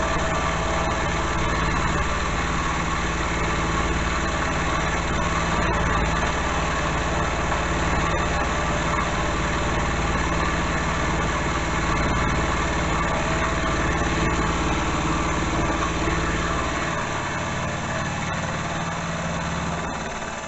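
Milling machine running steadily under power feed while machining a steel tool blank. Its deep low hum drops out about 17 seconds in, leaving the higher machine sound.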